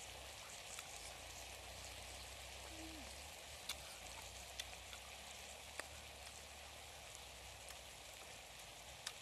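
Small wild orange being peeled by hand and bitten into: a few short sharp clicks of peel and fruit over a faint, steady hiss of outdoor background.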